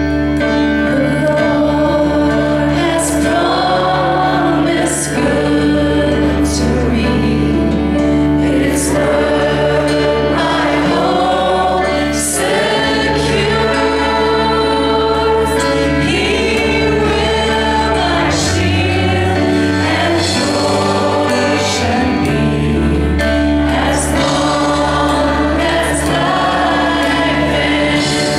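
A man singing a slow Christian worship song into a microphone, with a live band of electric guitar and bass behind him. Sharp high hits come every couple of seconds.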